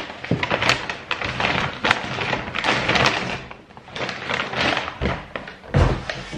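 Large sheets of white wrapping paper crinkling and rustling as they are handled and pulled out of a cardboard parcel. A dull thump comes near the end as the cardboard box is moved.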